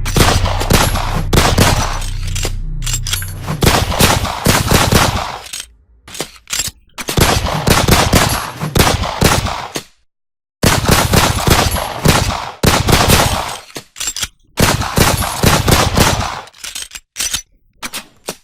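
Automatic gunfire sound effects: rapid bursts of machine-gun fire a few seconds long, broken by short silences, with a few shorter bursts near the end. A low steady tone sits under the first few seconds.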